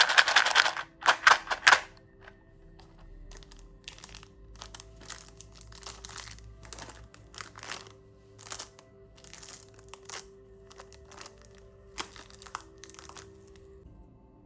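Plastic candy wrapper crinkling as lollipops are unwrapped: a loud spell of crackling in the first two seconds, then softer crinkles on and off. Faint background music with steady held notes underneath.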